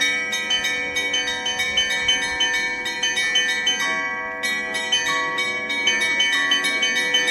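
Russian Orthodox monastery bells being rung: small bells struck in a quick rhythm, about four strokes a second, over the sustained ring of larger bells.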